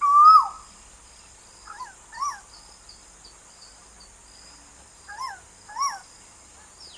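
Asian koel calling: one loud call at the start that rises and then drops away, followed by two pairs of shorter rising-and-falling notes, about two and about five seconds in. A steady high hiss runs underneath.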